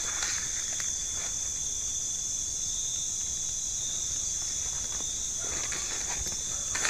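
Steady high-pitched chirring of a night insect chorus. Faint footsteps rustle on dry leaf litter just after the start and again near the end.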